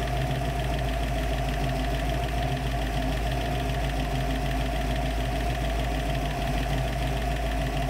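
Warm 347 stroker small-block Ford V8 with a Holley 4160 four-barrel carburetor idling steadily while its idle mixture screws are fine-tuned for the highest vacuum.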